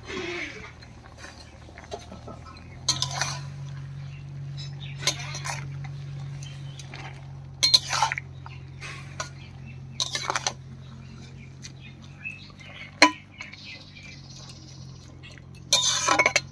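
A metal cooking utensil stirring leafy greens in a metal kadai, knocking and scraping against the pot in irregular clinks, with a cluster of clatter near the end. A low steady hum runs underneath.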